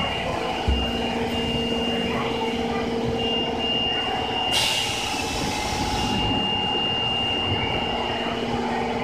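Osaka Subway 23 series train standing at an underground platform, with a steady low hum and a steady high electronic tone. About four and a half seconds in, a burst of air hiss lasts about a second and a half as the doors close before departure.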